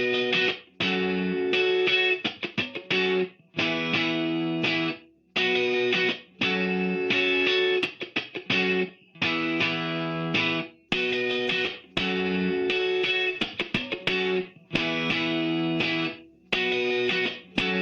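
Electric guitar played through the Adamastor Dual Channel, repeating a short chord riff in choppy phrases with brief breaks between them.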